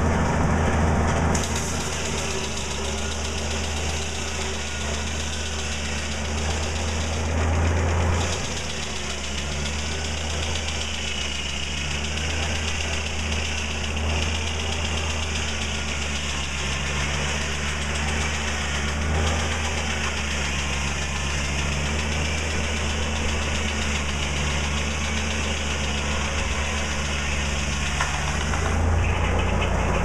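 Belt-driven circular sawmill cutting a log. The big blade runs through the wood as the carriage feeds the log, over the steady drone of the machinery driving the mill.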